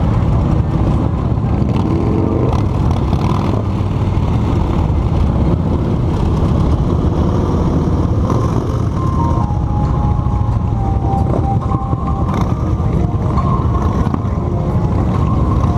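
Cruiser motorcycles riding in a group: a steady heavy engine rumble mixed with wind noise on the microphone. From about nine seconds in, a faint tune of held notes stepping in pitch sounds over it.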